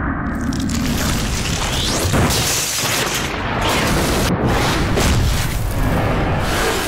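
Film sound effect of the atomic-bomb blast: a loud explosion setting in just after the start and going on as a long, dense roar and rumble.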